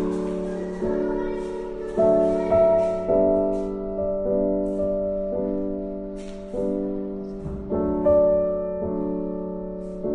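Background music: slow piano chords, struck about once a second and left to ring and fade.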